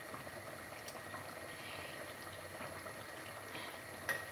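Tomato sauce simmering in a saucepan, with faint bubbling and popping.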